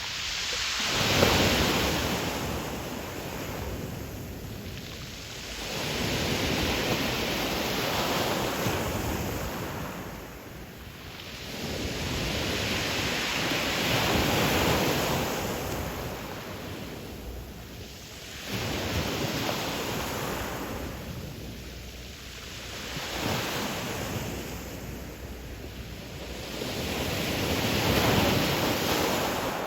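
Ocean waves breaking and washing up the shore, the surf swelling and fading every four to six seconds, with some wind on the microphone.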